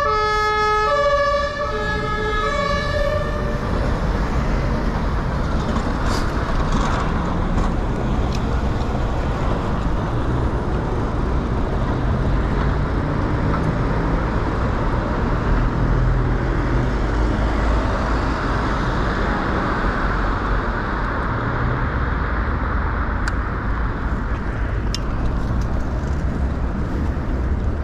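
A two-tone emergency-vehicle siren, alternating between two pitches, fades out about three seconds in. After that come steady city traffic and wind rumble as the bicycle rides through busy intersections.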